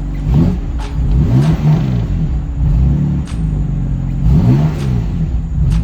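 BMW M4's S55 twin-turbo straight-six engine revved in several short blips, pitch rising and falling back to idle each time. It runs smoothly without shaking: the misfire is cured by new spark plugs.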